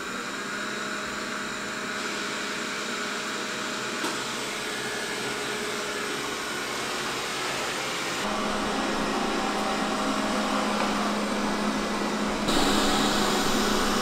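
Xiaomi Mijia robot vacuum cleaner running: a steady whir from its suction fan and brushes over a low steady hum. The tone shifts abruptly about two, eight and twelve and a half seconds in, and the sound grows a little louder toward the end.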